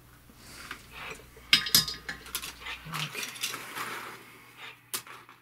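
Irregular clicks, knocks and light clattering as a keyboard circuit board and tools are handled and set down on a workbench.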